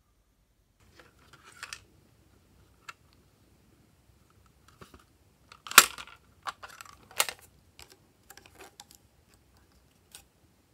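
Glossy slime being handled and mixed: scattered sticky clicks and crackly pops, sparse at first, with the loudest pops about six and seven seconds in.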